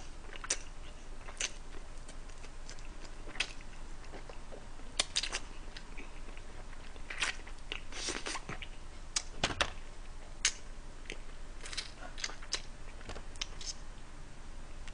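Close-miked chewing and biting of food, with irregular wet mouth smacks and small clicks.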